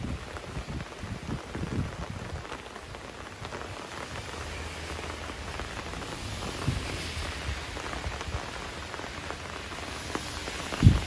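Steady rain falling, with many small drop ticks through it. A single dull low thump near the end is the loudest sound.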